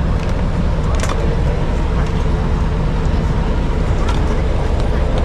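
Ice cream van's engine running steadily with a low rumble, with a few light clicks over it.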